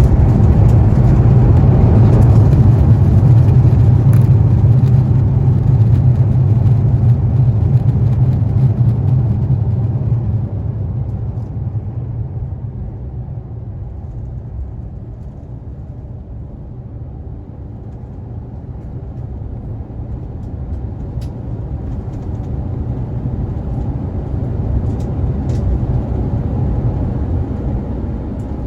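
Airbus A350-1000's Rolls-Royce Trent XWB engines and airflow during the landing rollout, heard inside the cabin: a loud, steady rumble and rush, likely reverse thrust. It eases off after about ten seconds as the aircraft slows, then swells slightly again near the end.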